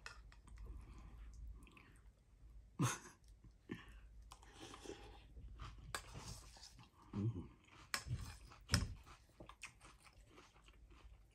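A person chewing crunchy Fruity Pebbles cereal with milk, with scattered crunches and a few louder clicks about 3 and 9 seconds in.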